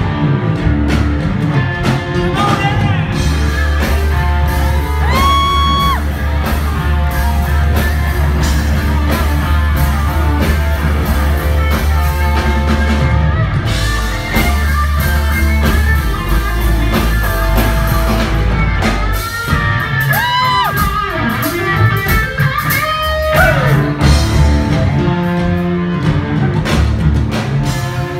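Live rock band playing through a PA: an electric guitar solo with held, bending notes over bass guitar and drums.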